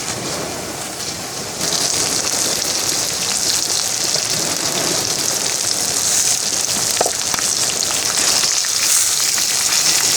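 Onions and sausage sizzling in a pan on a camp burner, a steady hiss that jumps suddenly louder about a second and a half in.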